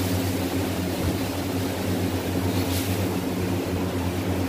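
A motor running with a steady low hum over a noisy drone, with a brief soft hiss a little past halfway.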